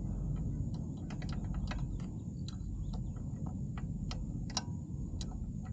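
A hand wrench working the small 8 mm bolt on a motorcycle's kickstand safety switch: light, irregular metal clicks and taps, a dozen or so, over a steady low rumble.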